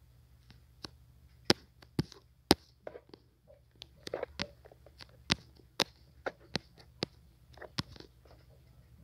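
Fingertip or stylus taps on a phone touchscreen: about a dozen sharp, irregular clicks over a low steady hum.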